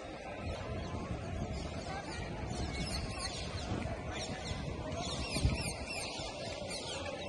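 Many small birds chirping, in quick high falling notes, over a steady low rumble of wind on the microphone, with a single dull thump about five and a half seconds in.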